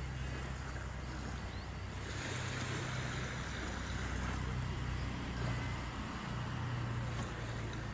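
Beach ambience: a steady low rumble under a soft hiss of wind and small waves lapping at the shore.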